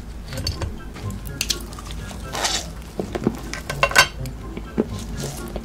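Close-miked ASMR handling and eating sounds: a gloved hand rustles as it picks up a spiky green candy ball, then bites into it with sharp crunches and clicks. There is one longer crackling burst about halfway through.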